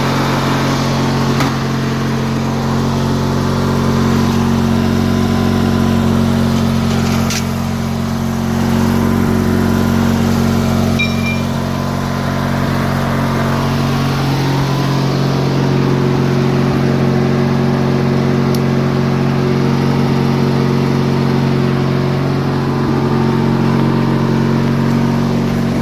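1997 MTD Yard Machines riding mower's engine running steadily, with a little skip here and there in its running.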